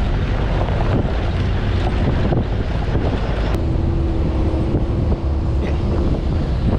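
Wind buffeting the microphone over the low rumble of a moving off-road jeep, with a steady hum that comes in about halfway through for a couple of seconds.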